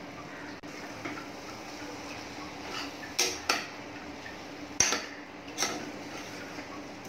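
A metal ladle stirs mutton curry ingredients in a metal pressure cooker, scraping against the pot and knocking its side four times near the middle with short metallic clanks.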